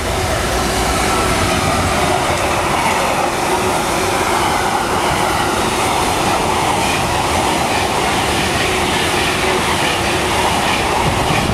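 A train passing close by: a loud, steady rush of wheel and rail noise that holds level throughout.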